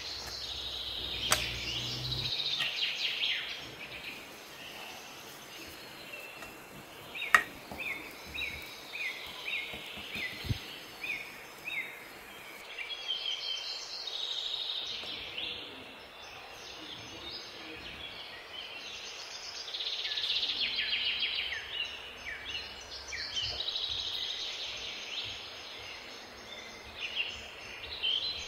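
Many small birds chirping and twittering continuously in quick, high, downward-sliding notes. Two sharp knocks cut through, the louder one about seven seconds in.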